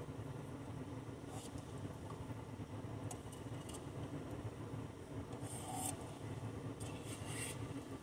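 Steady low hum inside a car's cabin, with a few short, faint scrapes and clicks scattered through it.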